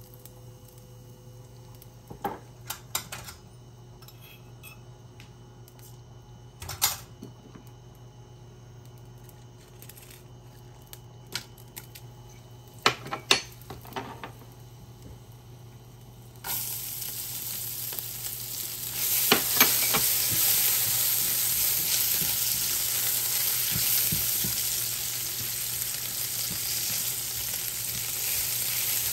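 Tempering spices in hot oil in a frying pan. A few light clicks and taps come first as spices go in, then chopped garlic dropped in sets off a sudden loud sizzle about halfway through. The sizzle carries on steadily while a spatula stirs and taps the pan.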